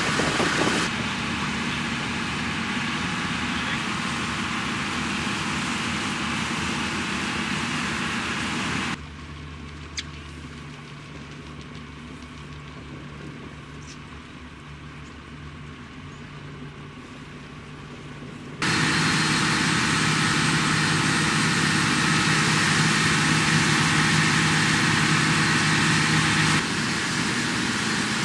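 A boat's engine running steadily under a broad rush of wind and water. The level drops suddenly about a third of the way in and jumps back up about two-thirds in.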